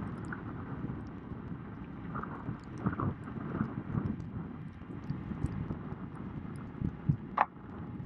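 Uneven low rumble of wind and water noise picked up by a camera riding on a boat moving along the river, with a few faint distant calls. One brief, sharper sound stands out about seven seconds in.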